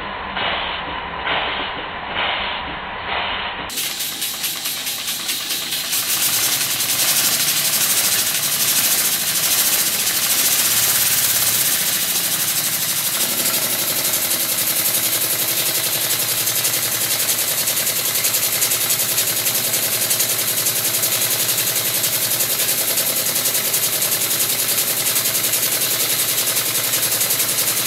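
Circa-1896 model steam engine running on live steam. For the first few seconds it gives slow, even puffs. About four seconds in this changes to a loud, steady hiss with a fast beat as the engine runs quickly, with steam blowing from its dummy piston rod gland.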